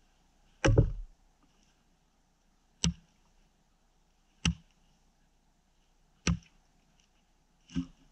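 Fire axe chopping into a frozen spruce log while bucking it: five sharp strokes about one and a half to two seconds apart. The first stroke is the loudest.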